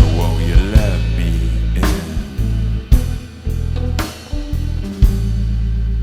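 Live rock band playing an instrumental passage: electric guitars over bass and drums, with a guitar line gliding in pitch near the start.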